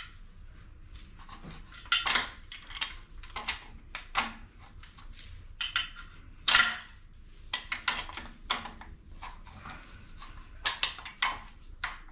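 Irregular metallic clinks and scrapes of hand tools on metal as a stuck dowel pin is worked out of a Northstar engine's head bolt hole, with one louder clank about halfway through.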